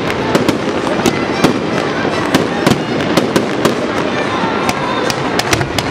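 Aerial fireworks bursting: a rapid, irregular run of sharp bangs and pops.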